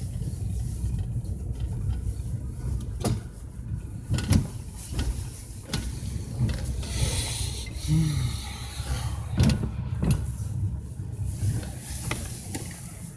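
Mercedes-Benz C 63 AMG's 6.2-litre V8 idling with a steady low rumble, heard from inside the cabin. Scattered sharp clicks and knocks sit on top of it, and there is a short hiss about seven seconds in.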